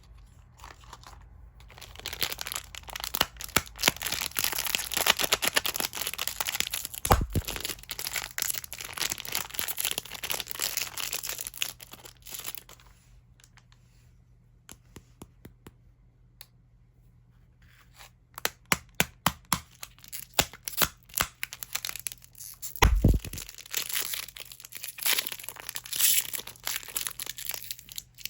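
Plastic candy wrappers being torn open and crinkled by hand, in two long spells of dense crackling rustle with a quieter stretch of scattered clicks between them. There are two dull low thumps, one about seven seconds in and one in the second spell.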